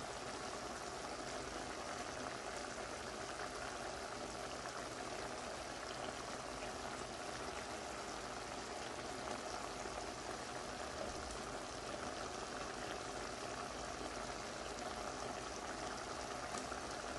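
Lamb and tomatoes simmering in a karahi on low heat: a steady, even bubbling hiss from the cooking liquid.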